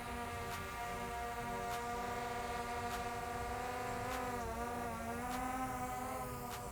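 DJI Air 2S quadcopter's propellers buzzing in flight, a steady whine like a wasp. The pitch dips and comes back up about four seconds in as the rotors change speed while the drone manoeuvres.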